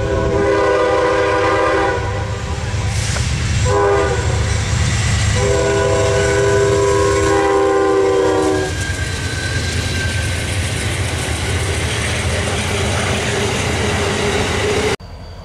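Amtrak passenger train passing at speed, its locomotive's multi-chime air horn sounding a long blast, a short blast and another long blast over the rumble and clatter of the cars. The train noise carries on after the horn and cuts off suddenly near the end.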